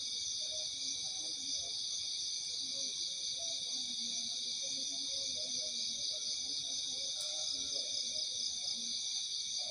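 Night insect chorus: several crickets or katydids trilling steadily at different high pitches. A single faint click sounds about seven seconds in.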